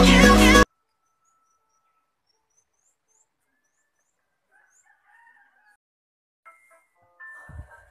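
Background music cuts off less than a second in. Then come faint chirps of small birds and a rooster crowing faintly in the distance, with a low bump near the end.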